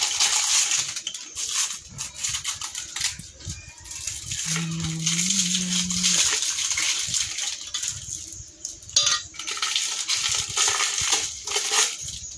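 Clear plastic wrapping crinkling and tearing as it is peeled off a new chrome motorcycle exhaust header pipe, a steady run of crackles and small clicks. A brief low hum sounds near the middle.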